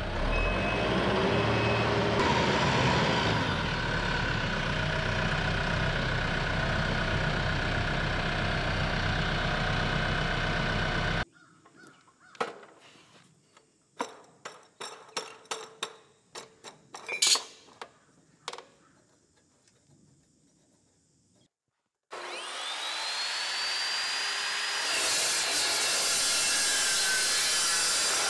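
A TYM T654 compact tractor's diesel engine running steadily for about eleven seconds. Then a quiet stretch of light clicks and knocks as steel tube is handled and clamped. Then, a little past twenty seconds in, an Evolution chop saw whines up to speed and cuts into 2-inch square steel tube with a loud, steady high-pitched grind.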